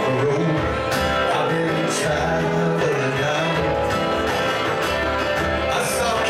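Live band playing a country-rock song: guitars and keyboard over bass and drums, with cymbal hits about a second in, again a second later, and near the end.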